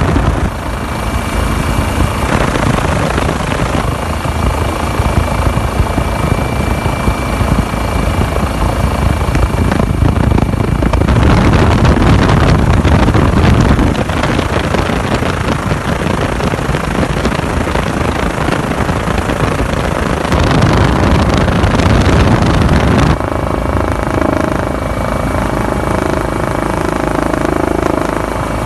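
Helicopter engine and rotor noise heard from aboard: a loud, steady din whose tone changes twice.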